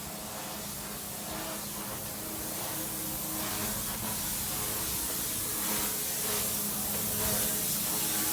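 Pressure washer spraying: a steady hiss of the water jet over the steady hum of the washer's motor and pump, growing gradually louder.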